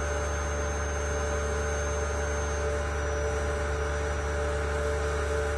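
Vacuum pump of a 500-litre sigma-blade mixer running with a steady hum, drawing the sealed mixing chamber down as the vacuum slowly builds.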